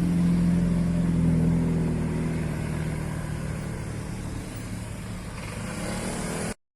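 Car engine running with a steady low drone that slowly drops in pitch and fades, then cuts off abruptly near the end.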